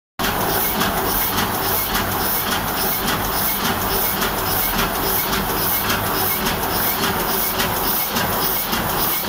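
Heidelberg GTO 46 sheet-fed offset press running and printing. It makes a steady mechanical clatter from its rollers, grippers and sheet feed, with an even beat of about two strokes a second.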